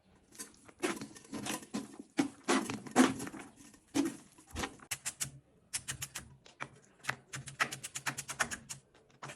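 A run of sharp kitchen knocks and clicks, heavier and irregular for the first few seconds, then quicker and more even at about three or four a second, like a knife on a cutting board, over a faint steady hum.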